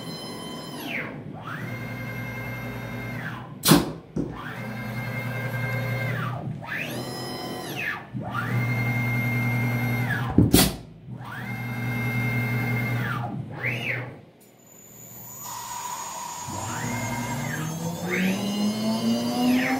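CNC router with an automatic tool changer running a tool change. The axis drive motors whine through a series of moves, each rising in pitch, holding, then falling. Two sharp bursts, about 4 s and 10 s in, are the spindle releasing the old tool and clamping the new one. Near the end the spindle starts spinning up with a steadily rising whine.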